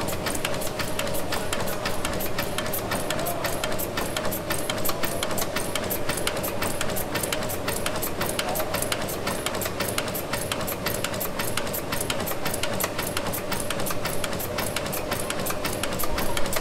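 1904 Sulzer tandem-compound steam engine running steadily, its valve gear making a fast, even train of mechanical clicks over a steady hum.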